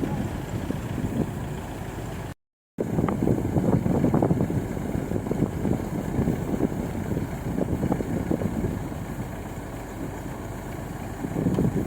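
Combine harvester's diesel engine running steadily while unloading paddy, cutting out briefly about two and a half seconds in.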